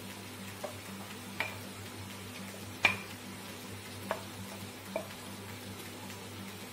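Tomato masala sizzling in a kadhai as thick cashew and melon-seed paste is emptied into it from a steel bowl, with about five sharp clicks and knocks from the bowl, the loudest about three seconds in.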